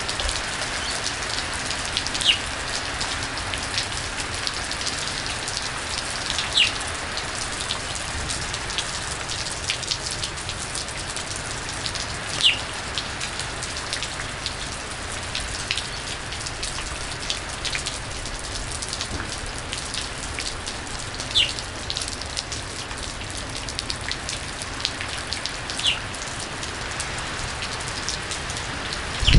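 Heavy rain pouring down in a steady hiss, with a sharper drop or splash standing out every few seconds.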